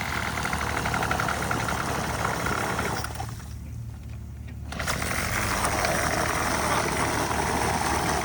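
Weed eater engine driving a kayak, running steadily with a fast, even buzz. A little over three seconds in it drops back to a low idle, then revs up again about a second and a half later.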